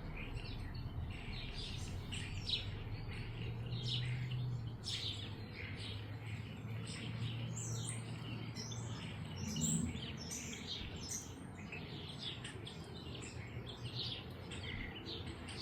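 Several small songbirds chirping and twittering in quick, overlapping calls, with a low steady hum underneath for a few seconds in the middle.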